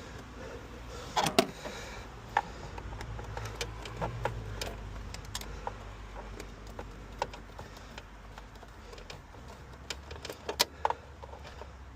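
Scattered clicks and knocks of plastic air-intake parts being handled and pushed into place on the engine, with a louder cluster about a second in and another near the end.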